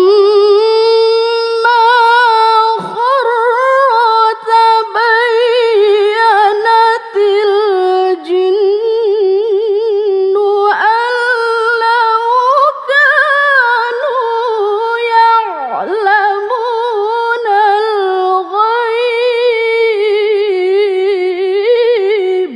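A woman reciting the Quran in melodic tilawah style, unaccompanied: one long unbroken phrase held on a sustained note, full of rapid ornamental trills and wavering pitch.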